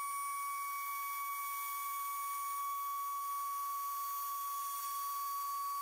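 Home-built CNC router cutting MDF, with a Makita trim router as spindle: a steady high whine, under which fainter tones from the stepper motors step to new pitches every second or two as the machine changes moves.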